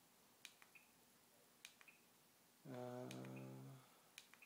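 Faint sharp clicks, each followed by a short high chirp, repeating about once a second, with a low steady pitched tone lasting about a second a little before the three-second mark, playing from a MacBook's speaker.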